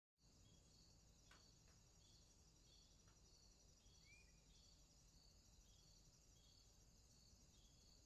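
Near silence, with very faint high chirps repeating at an even pace, a little more than once a second, and one faint short call about halfway through.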